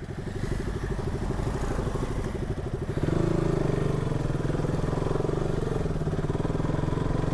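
Single-cylinder motorcycle engine running at low revs on a rough trail, pulling harder and louder about three seconds in.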